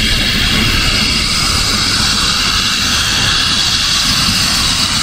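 Twin turboprop engines of an ATR 72-500 airliner running on the ground as it moves along the runway: a steady high whine over a low rumble.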